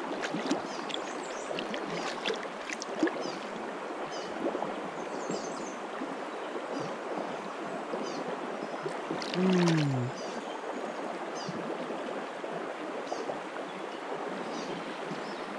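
Steady rush of stream water, with faint high chirps scattered through it. About nine and a half seconds in comes a brief low sound falling in pitch, the loudest moment.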